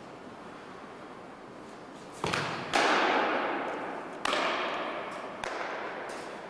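A fastpitch softball striking hard during pitching practice: four sharp knocks, the second the loudest, each ringing out with a long echo in a gymnasium.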